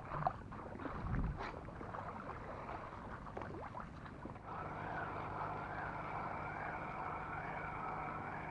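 A motorboat engine droning steadily, coming in about halfway through with a slight regular waver in its pitch, after a few light clicks and knocks.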